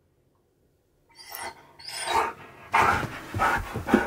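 Husky 'talking': a run of short, whiny, voice-like vocalizations starting about a second in, captioned as 'Door open!'. The dog is asking for the door to be opened.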